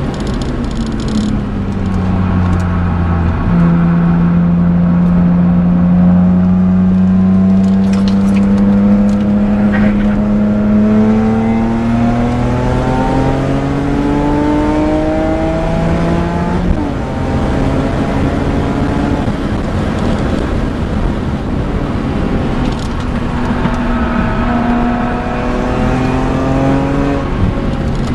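BMW M3 E46's 3.2-litre straight-six with a Supersprint exhaust, under hard track driving and heard from inside the cabin. The revs climb slowly and steadily for about ten seconds in one gear, drop sharply, hold steady for a while, then fall again near the end.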